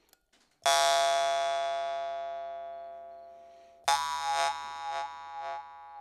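Ovcharenko Yggdrasil drymba (jaw harp) plucked about half a second in, its steady buzzing drone ringing and slowly fading over about three seconds. It is plucked again near four seconds, and this time the overtones shift up and down a few times as the mouth reshapes them.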